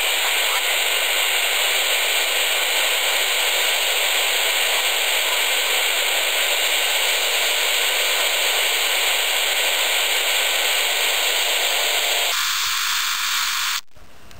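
Steady hiss of static from a Yaesu FT-817 transceiver's speaker, tuned to AM on 10 metres. About twelve seconds in it gives way abruptly to a thinner, quieter hiss, with a brief drop near the end.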